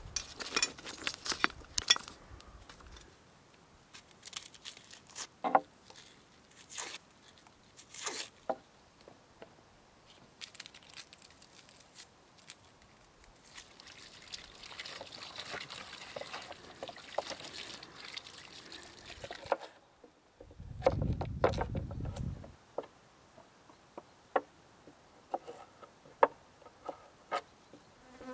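Water pouring and splashing over potatoes being scrubbed by hand for several seconds past the middle, then a low buzz for about two seconds. Near the end a knife taps as it slices carrots on a wooden cutting board. Scattered sharp clicks come early on.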